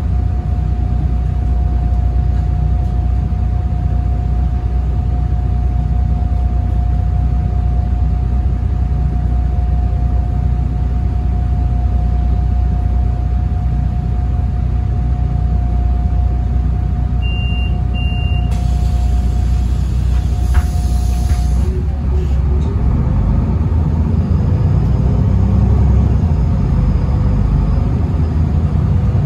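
Interior of a Solaris Urbino 18 articulated bus with its DAF PR228 diesel engine: a steady low rumble with a steady whine over it. Past halfway come two short beeps, then about three seconds of compressed-air hiss, after which the whine stops and a rising note sets in.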